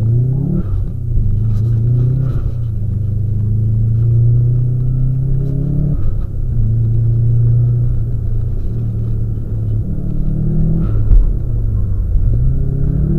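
Subaru's boxer engine under load, heard from the car: the revs climb steadily, drop sharply about six seconds in, climb again, ease off around eleven seconds and pick up again near the end.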